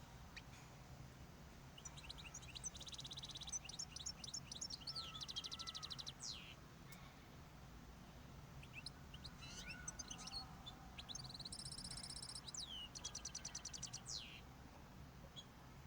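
Small cage birds in breeding condition, most likely zebra finches, singing. There are two short song bouts of rapid buzzy repeated notes mixed with squeaky chirps, one starting about two seconds in and another starting near the middle, over a faint steady hum.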